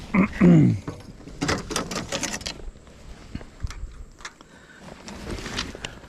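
A short, loud voice-like sound falling in pitch, then about a second of rapid clicking and rattling as a baitcasting rod and reel are handled in a plastic kayak, with a few faint ticks after.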